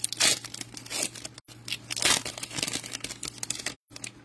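Foil wrapper of a Panini Prizm football card pack being torn open and crinkled by hand: a run of irregular sharp crackles and rustles.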